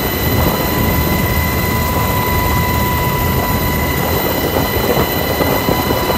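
Military helicopter in flight, heard from inside the cabin beside the open door: a loud, steady rotor and engine noise with a constant high whine over it.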